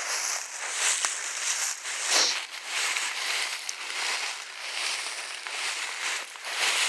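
Footsteps crunching and rustling through dry forest leaves, uneven, with a few louder crunches.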